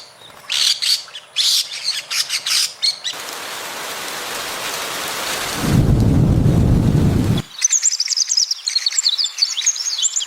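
Small birds chirping, then a few seconds of steady rain with a loud low rumble of thunder near the middle. The rain and thunder cut off abruptly and the birds chirp again, faster and busier than before.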